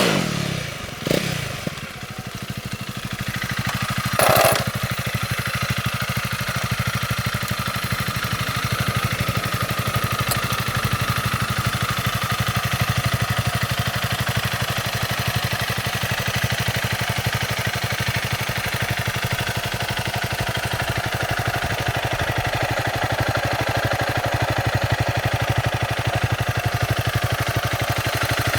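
Honda CRF300L's single-cylinder four-stroke engine through its stock exhaust, dropping back from a rev, giving a short throttle blip about a second in, then idling steadily. A sharp knock sounds about four seconds in.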